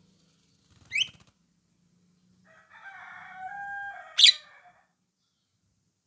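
Javan myna (jalak kebo) giving its typical call. A short, sharp note rising in pitch comes about a second in, then a harsh, drawn-out call of about two seconds, cut by a loud, sharp upward note near its end.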